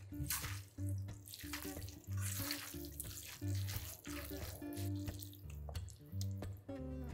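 Wet squishing and squelching of bare hands tossing and kneading cooked noodles with seaweed, cucumber and red sauce in an aluminium pot, in irregular bursts. Background acoustic guitar music with steady bass notes plays underneath.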